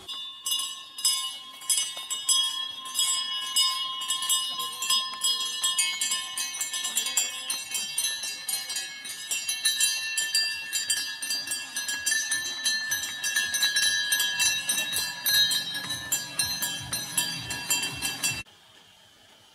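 Small bells jingling and ringing rapidly, many strikes over layered ringing tones, cutting off suddenly near the end.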